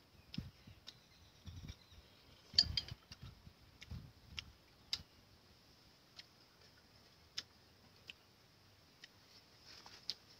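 A metal spoon clinking against a ceramic soup bowl and soft eating noises for the first few seconds, loudest about two and a half seconds in. After that come scattered single faint sharp clicks over a quiet steady hiss.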